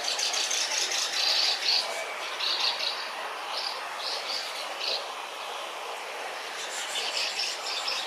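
Asian house martins chirping at their mud nests, chicks begging with quick high calls. The calls come in bunches through the first five seconds and again near the end, over a steady background hiss.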